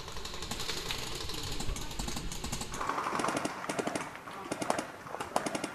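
Leaves and twigs rustling and crackling as someone in a ghillie suit pushes through dense undergrowth, with many small snaps; the crackling grows denser about three seconds in.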